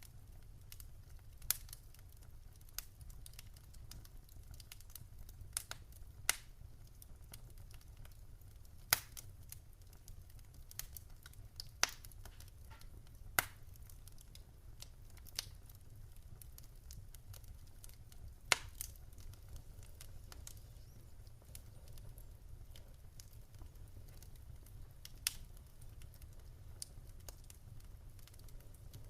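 Campfire crackling: sharp pops and snaps at irregular intervals, about ten of them louder than the rest, over a steady low rumble.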